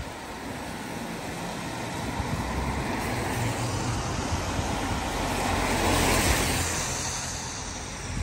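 A van drives past on a wet road, its tyres hissing on the wet tarmac over a low engine hum. The sound builds from about a second in, is loudest about six seconds in, then fades.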